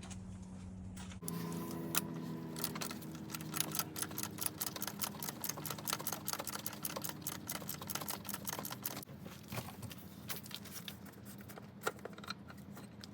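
Half-inch drive ratchet clicking in quick runs as it spins the Mini Cooper's oil filter housing cap loose, then a few scattered clicks near the end. A steady low hum runs underneath.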